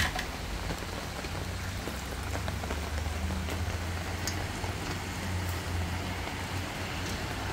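Steady rain falling on a fabric canopy overhead, with a low rumble underneath and a sharp knock right at the start.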